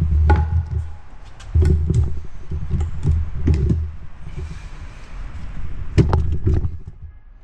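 Folded power wheelchair being lifted and loaded into the back of a minivan: uneven thumps, knocks and rattles of its frame, with a sharp knock about six seconds in.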